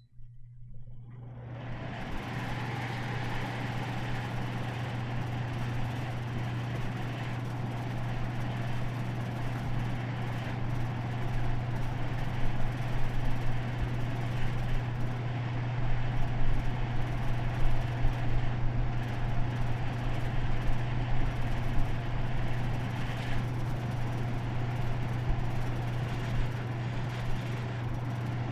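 Air conditioner just switched on, its fan building up over the first couple of seconds, then running steadily with a low hum under an even rush of air.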